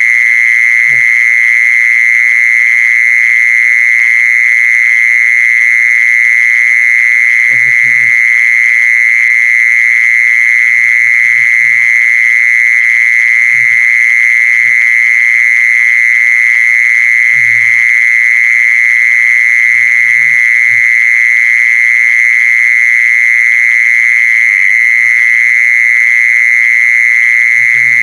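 A mole cricket (Isan 'jee-son') calling: a loud, unbroken trill around 2 kHz that holds steady throughout, recorded for playback as a lure. Faint low calls or knocks come in every few seconds beneath it.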